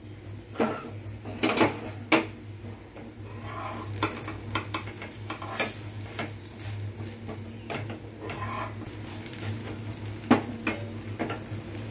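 A spatula scraping and knocking against a non-stick frying pan as an oats chapatti is pressed and turned, in a string of irregular clicks and taps, with a faint sizzle and a steady low hum underneath.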